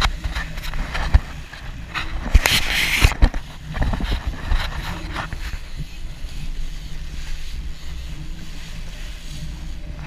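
Wind and water noise on an action camera aboard a boat: waves slapping the hull and spray hitting the camera, loudest about two and a half seconds in, over a steady low engine hum.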